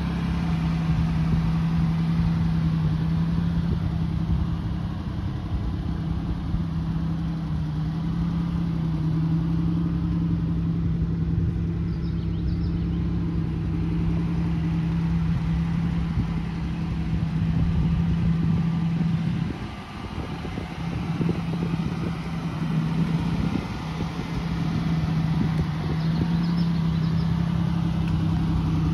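2004 Buick Rendezvous CX's 3.4-litre V6 idling steadily, a low even hum that dips briefly about two-thirds of the way through.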